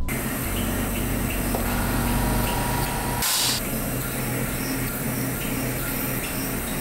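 CNC router spindle milling a metal plate with a small end mill: steady machining noise with a hiss over it, which flares into a brief louder hiss a little past three seconds in.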